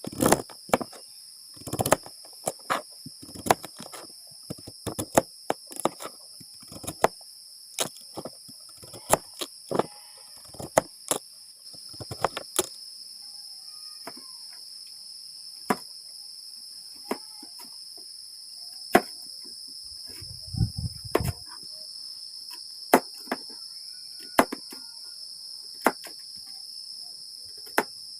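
Steady high-pitched chirring of forest insects, over irregular sharp knocks and taps, thickest in the first half, from hands at work preparing sweet potatoes, with a dull thud a little past two-thirds of the way in.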